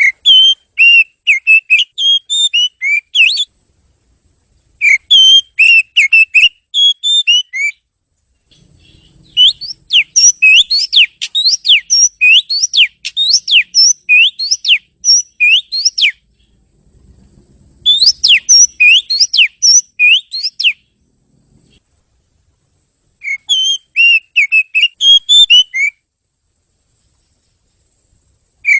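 Oriental magpie-robin (kacer) singing: phrases of loud, clear whistled notes, about five of them separated by short pauses, the longest in the middle a run of quick rising whistles.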